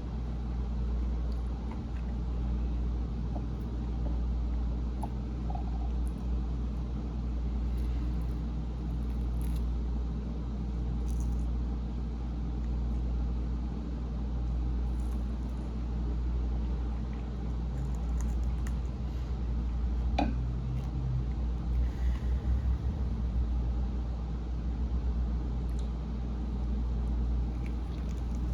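A steady low hum or rumble, with a few faint clicks and taps scattered through it.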